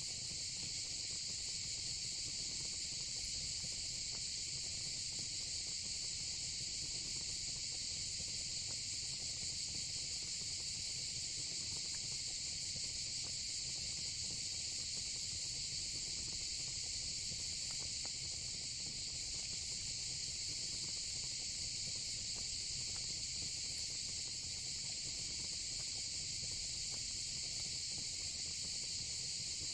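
Steady, unbroken chorus of insects, high-pitched and even throughout, with a faint low rumble beneath it.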